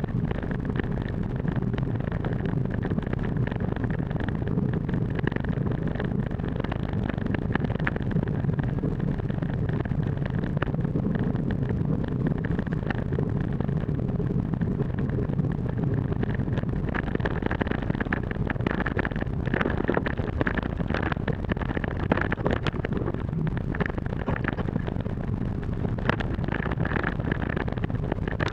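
Mountain bike riding fast down a forest dirt trail: tyre rumble and wind rushing over the bike-mounted microphone make a steady noise. Many sharp clicks and rattles come from the bike and the rough ground, more of them in the second half.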